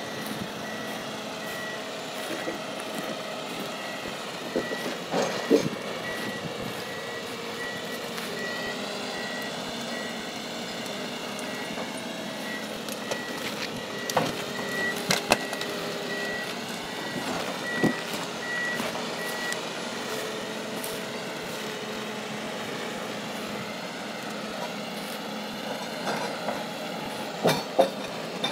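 Ponsse Elephant King forwarder running, its engine and hydraulics droning with the pitch rising and falling as the machine and crane work. A regular electronic beeping alarm sounds for most of the first two-thirds and then stops, and a few sharp clanks ring out along the way.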